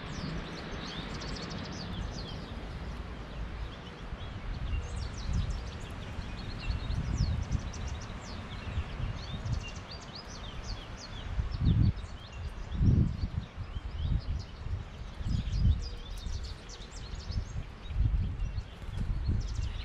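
Outdoor songbirds chirping and calling in quick, high notes, over gusty low rumbling of wind on the microphone.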